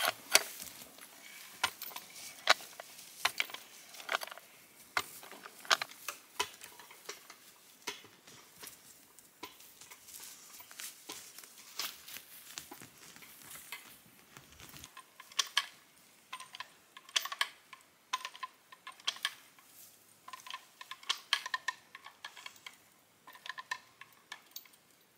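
Hand-operated lever cable winch being worked to tension a steel zip-line cable: a run of sharp metallic clicks and clanks, irregularly spaced, about one or two a second. In the second half some of the clanks have a short ringing tone.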